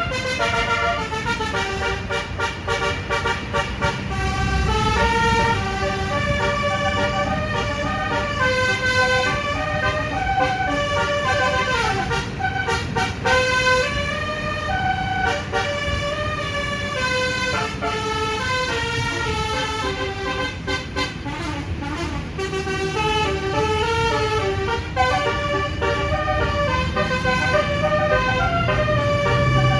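Telolet (basuri) multi-tone musical horn on a Putera Utama Rahma bus, playing a tune of stepping notes without a break, over the low rumble of the bus running.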